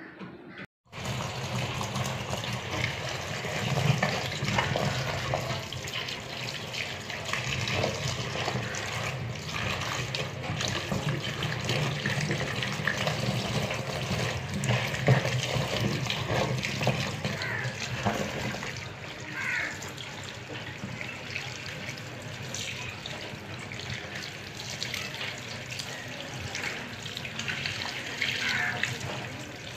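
Tap water running into a plastic colander of sliced taro root (arvi) in a steel sink while hands rub and turn the slices. The slices are being washed thoroughly to get rid of their sliminess.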